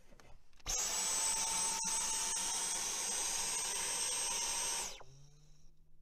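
Dyson Cyclone V10 cordless stick vacuum, used handheld, switching on about a second in. Its digital motor runs with a high, steady whine over a rushing air hiss, then cuts off near the end.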